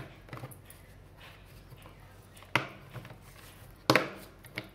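Plastic filter assembly of a robot vacuum's dust box being pressed and snapped back into place: a few sharp plastic clicks and knocks, the loudest about two and a half and four seconds in.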